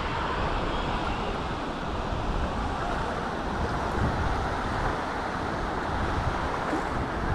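Steady wash of shallow sea water and distant surf, with wind buffeting the microphone in a low, fluttering rumble.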